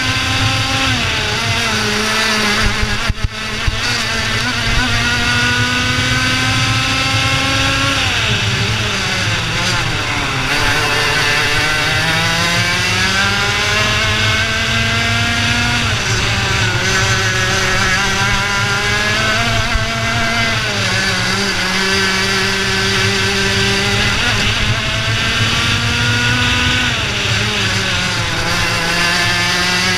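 IAME Leopard 100cc two-stroke kart engine running at racing speed. Its pitch climbs steadily down each straight and drops sharply as the driver lifts for a corner, about four times.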